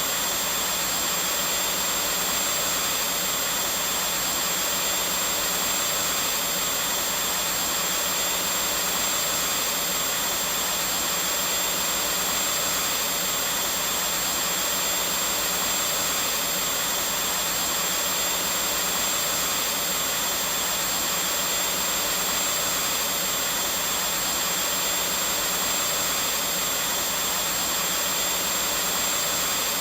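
Vacuum cleaner motor running continuously: an even, unchanging rushing noise with a thin steady high tone over it.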